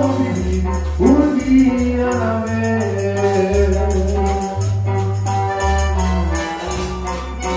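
A small live band playing a slow worship song: electric bass, acoustic guitar and a man's singing voice, with a steady high percussion tick. A sung phrase comes in about a second in.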